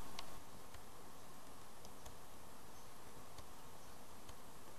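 Low, steady hiss of room tone with a few faint, scattered clicks.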